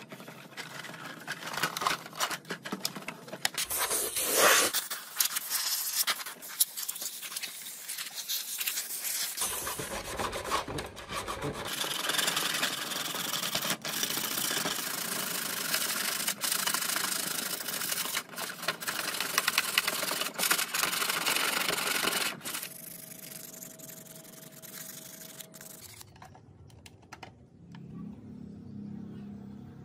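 Hand sanding of a mini motorbike's plastic tank cover with a sanding block: repeated rubbing strokes that stop about three-quarters of the way through, after which it is much quieter.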